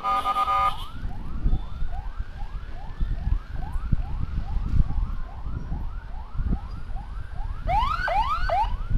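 Electronic emergency sirens on the escort convoy in fast yelp mode, rising sweeps about three times a second, with a slower wail running underneath. There is a short steady horn blast right at the start, and the yelping grows louder near the end, over a low road rumble.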